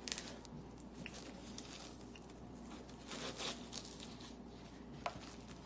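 Quiet rustling and crinkling of shipping packaging being handled and opened, with a few small clicks and a sharp tap near the end.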